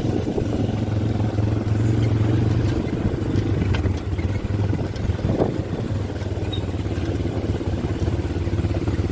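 ATV quad bike engine running slowly and steadily, a continuous low drone.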